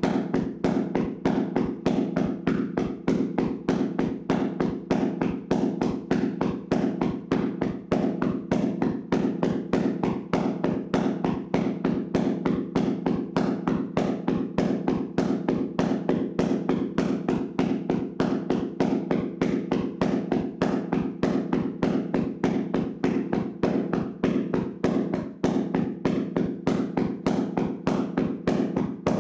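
Hands slapping and tapping a person's body in a vigorous percussive massage: a fast, even train of dull strikes, several a second, that does not let up.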